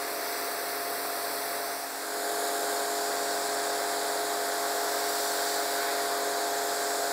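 Güde GHD-225 electric pressure washer running, its motor and brass pump giving a steady hum with a whine, while the jet from the 15° nozzle hisses against brick pavers. It grows a little louder about two seconds in.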